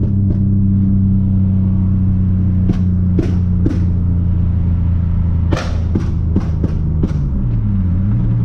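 Nissan Maxima's 3.5-litre V6 engine heard from inside the cabin, cruising with a steady drone. Its pitch dips and comes back up near the end. Several sharp clicks or knocks sound over the middle of the stretch.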